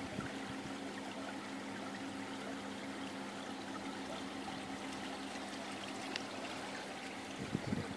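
Water running and trickling steadily, with a low steady hum underneath.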